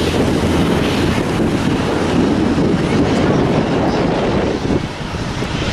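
Jet airliner engines running at high thrust, most likely a Southwest Boeing 737 taking off: a steady, loud rush of engine noise mixed with wind on the microphone. It dips briefly near the end.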